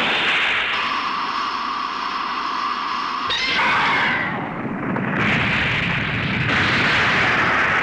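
Kaiju-battle sound effects: a steady electronic whine from about a second in, cut off a little after three seconds by a sudden blast, then continuing explosion noise.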